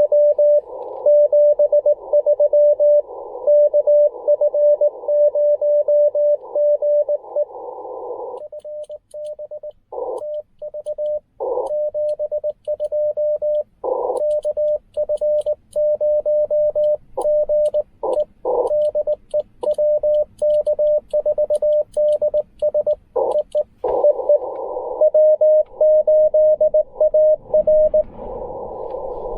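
Morse code (CW) from a Ten Tec Argonaut V transceiver: a steady tone of about 600 Hz keyed on and off. For the first eight seconds or so it comes over a band of receiver hiss, as a station is received. After that it turns clean, the sidetone of the operator's own sending, with faint clicks of the key paddle, and short stretches of hiss return near the end.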